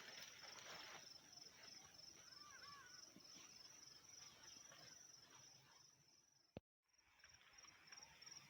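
Near silence with a faint, high insect chirring that pulses evenly about four times a second; the sound cuts out completely for a moment about two-thirds of the way in.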